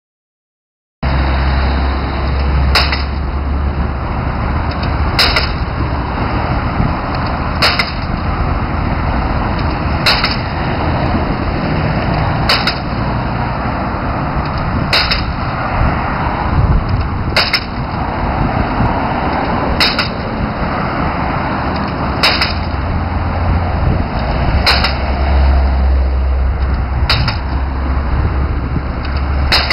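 Window sampler drilling rig at work: its engine runs steadily under a loud, even blow about every two and a half seconds, as its percussive hammer drives the sampler tubes into the ground.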